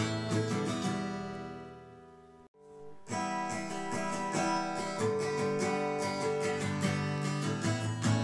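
Background music: strummed acoustic guitar, fading out about two seconds in and starting again a second later.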